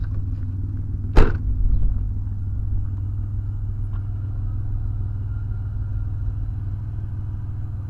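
Steady low rumble in a car, with one sharp click a little over a second in.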